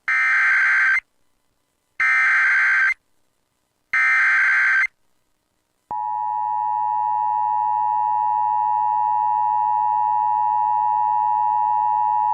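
Emergency Alert System tones announcing a severe thunderstorm warning: three bursts of digital SAME header data, each about a second long and two seconds apart, then about six seconds in the steady EAS attention tone starts and holds.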